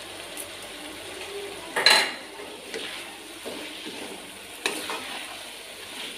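A spoon stirring and scraping through potatoes and eggplant frying in oil in a wok, with a low sizzle. There is a loud clank about two seconds in and a second, smaller knock near five seconds.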